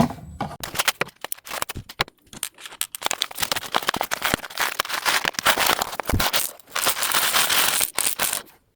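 Small plastic bags of tiny Microbricks pieces crinkling and rustling as they are handled, with many light irregular clicks.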